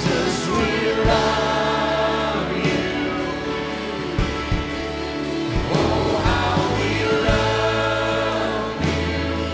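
Live worship band playing a slow song: electric guitar, bass and drum kit under a group of voices singing together.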